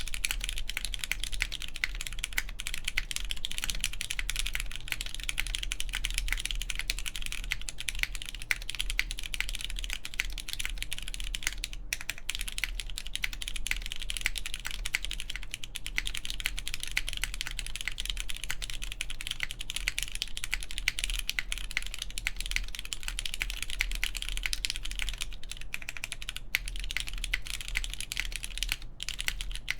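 Continuous typing on a DaringRun POLYGON-7 mechanical keyboard with lubed Cherry MX Brown tactile switches, mounted plateless on the PCB, and GMK Noire keycaps: a dense stream of key clacks with a couple of brief pauses.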